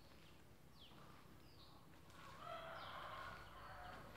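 Faint bird calls: a few short, falling chirps, and a louder call of about a second starting a little over two seconds in.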